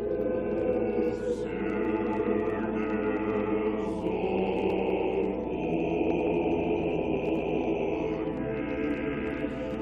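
Large mixed choir singing unaccompanied, holding slow sustained chords that shift a few times.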